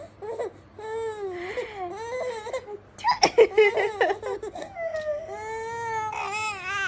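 A baby's drawn-out, high-pitched vocalizing: a string of long wavering squeals and wails, loudest about three seconds in.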